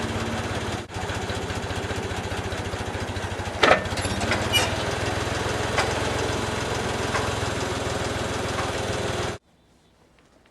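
Case 580K backhoe's diesel engine running steadily, with a sharp metallic clank about a third of the way in and a couple of lighter knocks after it. The engine sound stops abruptly near the end.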